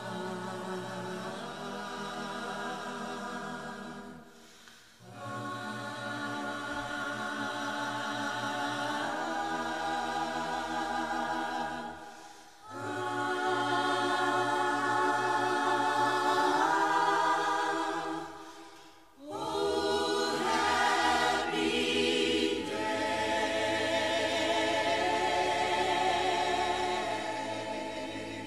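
Choir singing slow, held chords in long phrases, broken by three short pauses.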